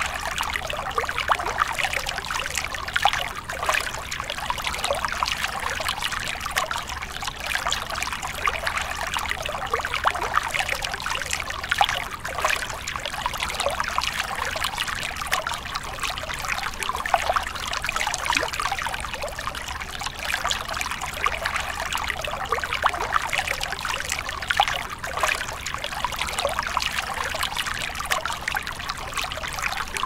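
Bamboo water fountain: a steady stream of water trickling and splashing without a break.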